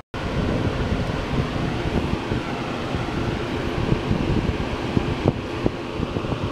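Wind buffeting the camera microphone: a steady rushing rumble, with a couple of faint clicks about five seconds in.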